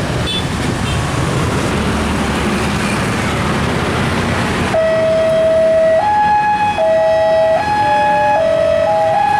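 Steady road-traffic noise, cut off abruptly about halfway through by a railway level-crossing warning alarm. The alarm alternates between a lower and a higher electronic tone about once a second.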